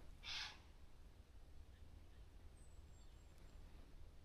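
Near silence, broken once about a quarter second in by a short, loud puff of hissy noise. A faint, high, falling chirp comes a little past the middle.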